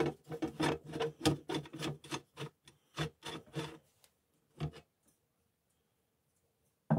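A screwdriver turning out the centre screw of a vintage gumball machine's painted metal top lid: a quick run of short strokes, about three or four a second, that stops about four seconds in, followed by one more short stroke.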